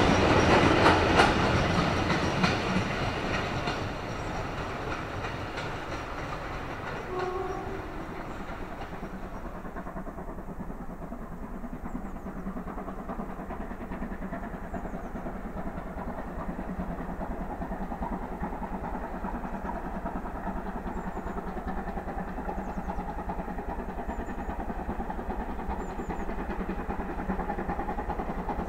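A passing steam-hauled train, its wheels clicking over the rail joints, dying away over the first few seconds. Then a steam locomotive working in the distance, slowly growing louder as it approaches, with faint birdsong.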